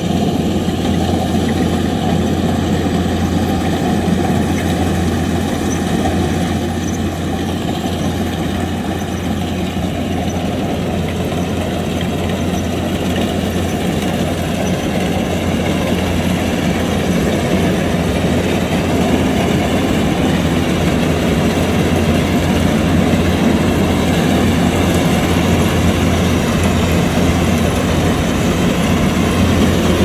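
Kubota combine harvester's diesel engine running steadily along with the machine's working noise. It dips slightly about a quarter of the way in, then runs a little louder again.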